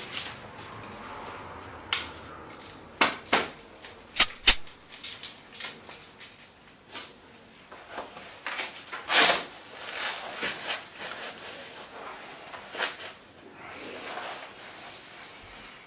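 Gear being handled and fastened: a run of sharp metallic clicks and clacks in the first few seconds, the loudest about four and a half seconds in, then scattered softer clicks, a longer rustling swish near the middle and another softer one near the end.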